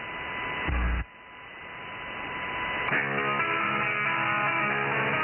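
Shortwave pirate radio signal heard through a receiver in upper sideband: static hiss with a steady whistle tone, a low thump and sudden drop about a second in, the noise swelling back, then guitar music starting about three seconds in, all narrow-band and thin.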